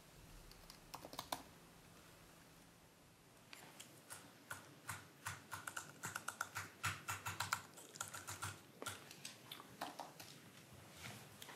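Typing on a laptop keyboard: a few quick keystrokes about a second in, a pause, then a long run of rapid keystrokes.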